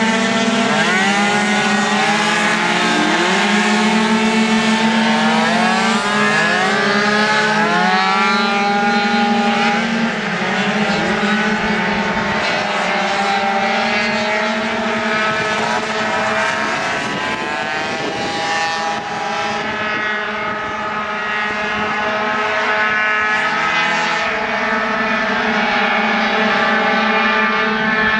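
Several racing 50cc two-stroke scooters lapping together, their high-revving engines overlapping and rising and falling in pitch as they brake and accelerate through the corners.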